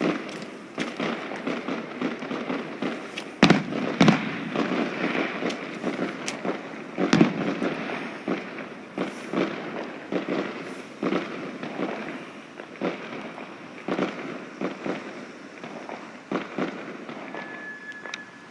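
Firework display: a dense run of bangs over continuous crackling, the loudest bangs about three and a half, four and seven seconds in. A short steady high whistle sounds near the end.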